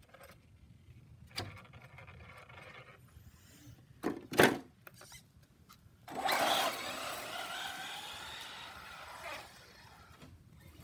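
Traxxas RC truck's electric motor whining and its tyres rushing on concrete as it suddenly accelerates away about six seconds in, the whine shifting in pitch and fading as it drives off. Around four seconds in come two sharp knocks, the loudest sounds.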